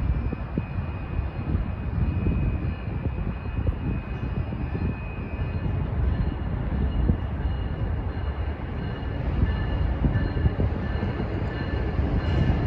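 Amtrak Siemens SC-44 Charger diesel locomotive (Cummins QSK95 engine) approaching: a steady low rumble with a thin high whine, getting a little louder near the end.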